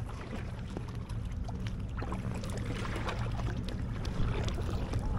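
Soft water splashes and drips from paddling an inflatable kayak, over a low steady rumble.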